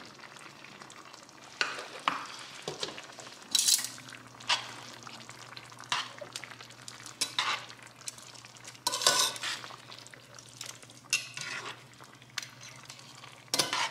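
Metal tongs stirring and tossing spaghetti and shrimp in a simmering cream sauce in a skillet: repeated scrapes and clinks of the tongs against the pan over a low sizzle.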